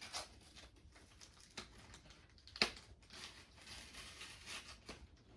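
Plastic packaging of a trading-card three-pack blister being handled: soft crinkling and light clicks, with one sharp click about two and a half seconds in.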